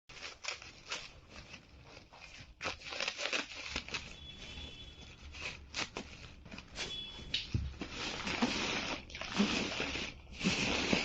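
Parcel packaging being torn open and crinkled by hand, an irregular run of rips and crackles that grows louder in the second half.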